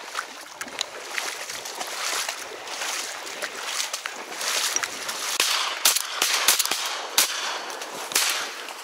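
Water splashing and sloshing as someone wades through shallow, flooded marsh water, with a run of sharper, louder splashes a little past the middle.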